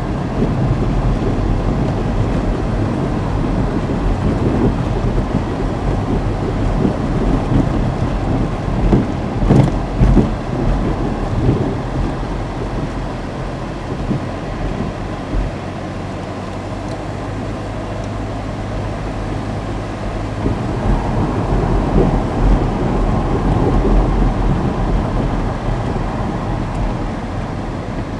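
A steady, loud low rumbling noise that swells and eases, with a few sharper bumps about ten seconds in.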